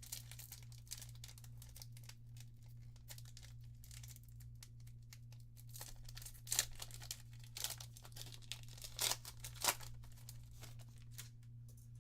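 Crinkling and tearing of trading card booster pack wrappers, with cards being handled: a run of crackly rustles, with several sharper, louder crinkles past the middle. A steady low hum runs underneath.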